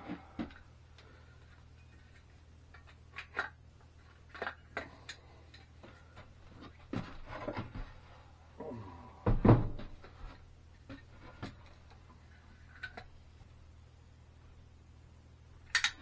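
Scattered clicks and knocks of a caulk gun being handled and a wooden bench being shifted on a workbench, with one heavy thump about halfway through as the bench is set down.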